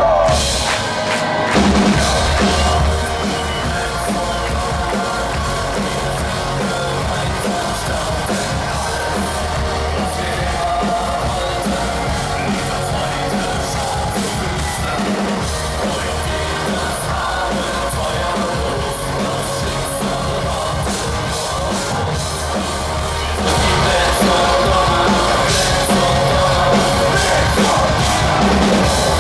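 Industrial metal band playing live, with a driving drum kit, heard through a small camera's microphone. The band drops back a little after a few seconds, then comes in louder and fuller near the end.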